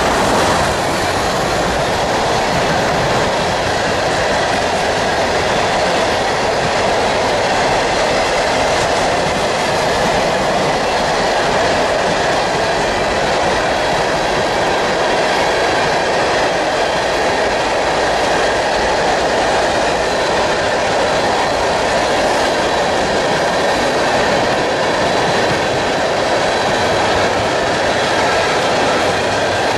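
A long freight train of tank cars rolling past: steady noise of steel wheels running on the rails, with a clickety-clack of wheels over rail joints.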